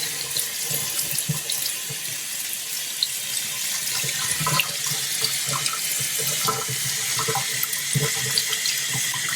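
Warm water running steadily, poured or sprayed over a dog's coat to rinse out the shampoo.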